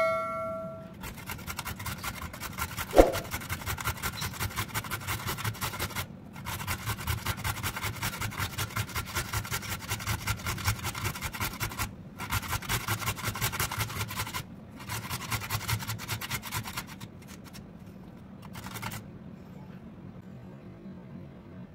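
Carrots being grated on a stainless-steel box grater: rapid rasping strokes in runs of a few seconds with short breaks, with a single knock about three seconds in. The grating stops a few seconds before the end.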